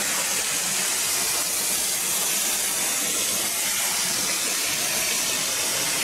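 Waterfall pouring and splashing onto rocks: a steady, hissing rush of water.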